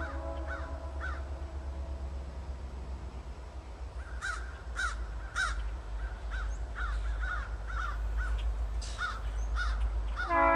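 Crows cawing, a loose series of short caws that grows busier from about four seconds in, over the low steady rumble of a distant approaching train.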